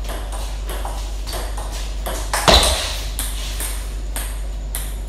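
Table tennis rally: the ball clicking off the wooden DHS Hurricane King III bats and the table at an even pace, about two hits a second. There is one much louder hit about two and a half seconds in, then a few lighter ticks.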